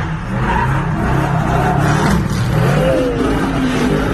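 Pickup truck engine revving up and down during a burnout, its rear tyres spinning against the pavement, heard from inside a nearby car.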